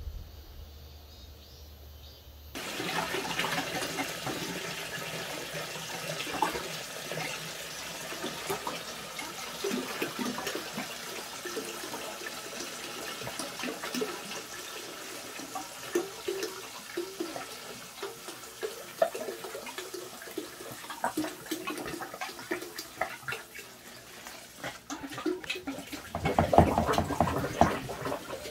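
Water running from a tap and splashing, with scattered small knocks and clatter throughout; it starts a couple of seconds in and gets louder for a couple of seconds near the end.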